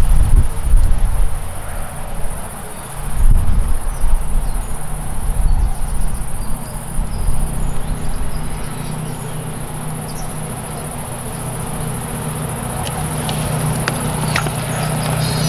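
Insects chirring steadily at a high pitch. Low buffeting rumbles, typical of wind on the microphone, come and go in the first half and give way to a faint low steady hum. A few light clicks sound near the end.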